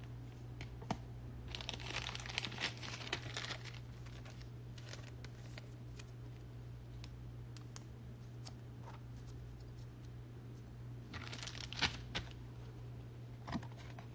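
Trading cards being handled on a tabletop: rustling and sliding of cards with small clicks and taps, in two short spells, about two seconds in and again near eleven seconds, over a steady low hum.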